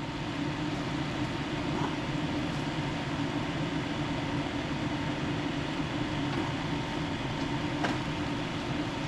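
Steady mechanical hum, like a running fan, with a couple of faint ticks.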